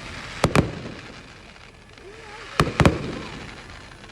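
Fireworks exploding: a close pair of sharp bangs about half a second in, then another pair about two and a half seconds in, each dying away in an echoing rumble.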